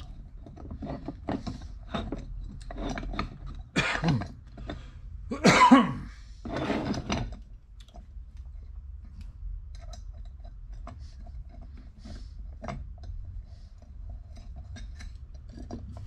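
A man coughing and clearing his throat three times, about four to seven seconds in. Around that, light clicks and scrapes of small hand tools and screws being driven into an aluminium block.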